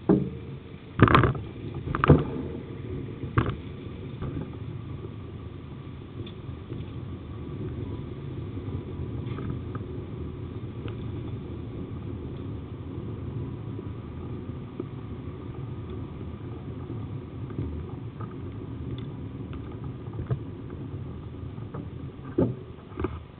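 Steady low rumble of the Cowes chain ferry's engine and machinery, with a few loud knocks in the first few seconds and two more near the end.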